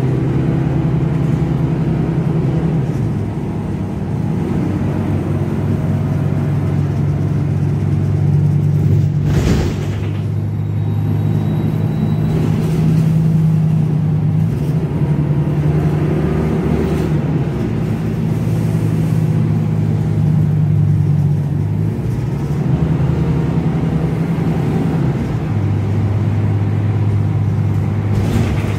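City bus engine droning inside the passenger cabin while driving, its pitch stepping up and down several times as the bus changes speed. A sharp knock about nine seconds in, and another near the end.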